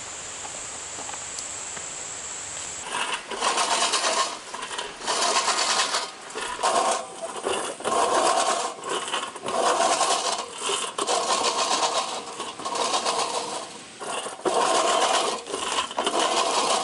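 A steady high-pitched insect drone, then about three seconds in a mower starts cutting grass. It is loud and swells and drops every second or so as it works through the growth.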